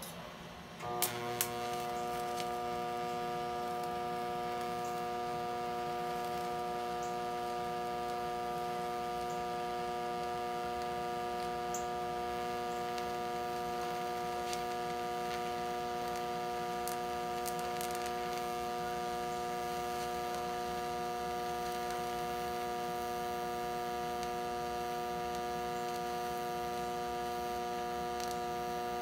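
Hobart TIG welder's arc starting about a second in with a couple of sharp crackles, then a steady electrical buzzing hum while the arc burns on the steel tube.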